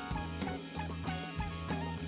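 Upbeat instrumental background music with a bass line, guitar-like notes and a steady drum beat.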